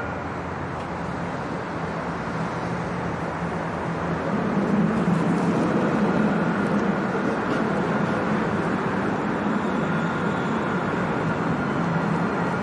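Dubai Tram pulling into the platform: a steady rolling rumble and hum, swelling from about four seconds in as the tram draws alongside, over road traffic noise.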